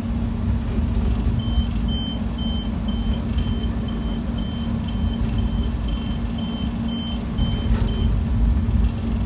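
Diesel locomotive running, heard from its cab as it rolls slowly: a deep, steady rumble with a constant hum. From about a second and a half in, a high electronic beep repeats about twice a second for some six seconds, then stops.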